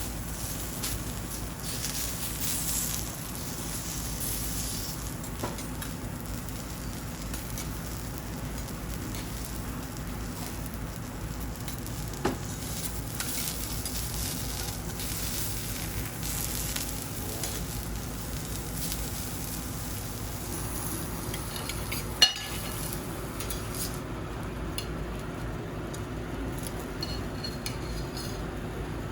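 Food sizzling on a teppanyaki iron griddle, with two sharp metallic clinks, the louder about 22 seconds in. The high hiss of the sizzle dies down about 24 seconds in.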